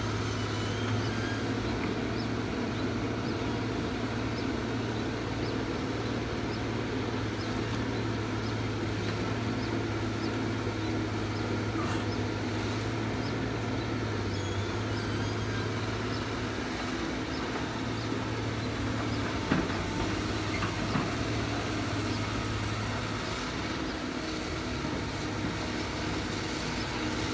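Kobelco crawler excavator's diesel engine running steadily with a deep hum while it works its arm and bucket; two short knocks stand out about two-thirds of the way through.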